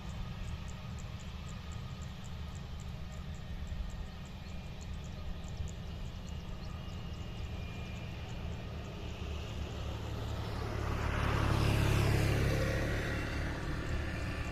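Jet engines of a Super Air Jet Airbus A320-family airliner: a steady low rumble that swells to a loud pass about twelve seconds in, its whine falling in pitch as it goes by, then easing off.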